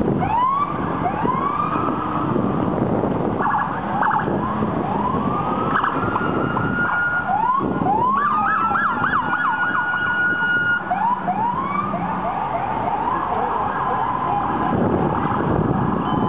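Police car siren sounding in short rising whoops, then a long rising wail, and a fast yelp of quick repeated sweeps about halfway through, over city traffic noise.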